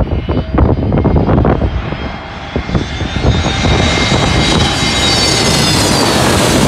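Airbus A320neo jet engines on arrival approach, a high whine that grows steadily louder and edges up in pitch as the airliner nears. Wind buffets the microphone in the first couple of seconds.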